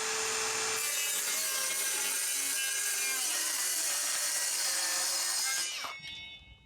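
Brushless 18 V cordless circular saw running at full speed, then about a second in the blade bites into the wood and cuts steadily for about five seconds. Near the end the cut finishes and the motor spins down with a falling whine.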